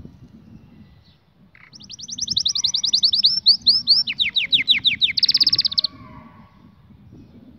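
Canary singing one song phrase about two seconds in, a run of rapid trills that step from high to lower pitch and finish with a very fast high trill, lasting about four seconds.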